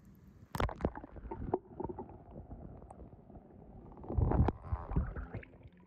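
Muffled underwater water sounds from a small toy car sinking in a swimming pool: low rumbling and sloshing with scattered knocks. There is a sharp click about half a second in and a louder low thump about four seconds in.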